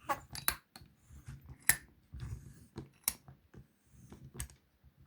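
Small metal wafer locks being shifted and reseated in a vise's jaws: a handful of sharp metal clicks and clacks spread over a few seconds, with faint handling noise between them.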